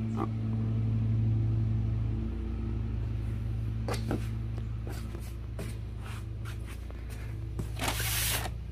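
Firework cakes and cardboard packaging being handled: scattered short knocks and clunks, then a stretch of rustling near the end, over a steady low mechanical hum.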